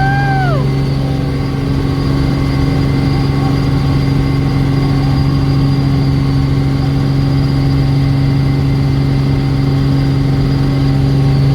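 Helicopter engine running with a loud, steady drone and a constant low hum. A brief high vocal glide, like a child's voice, sounds right at the start.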